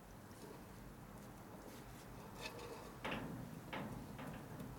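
Faint room tone, then from about three seconds in a few light clicks and rubbing of a T5 manual transmission's gears and shaft being turned by hand inside the case, a check of the shaft's free play after the bearing was driven in.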